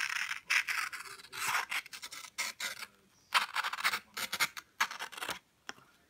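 Pocketknife blade slicing through a sheet of paper in a string of short, scratchy cutting strokes.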